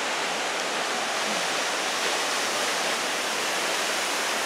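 Tall waterfall plunging down a rock cliff, heard from close by as a steady, even rush of falling water.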